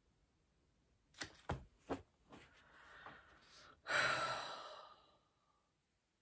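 A woman sighs: a breathy exhale about four seconds in that trails off over about a second. Before it come three short clicks and a fainter breath.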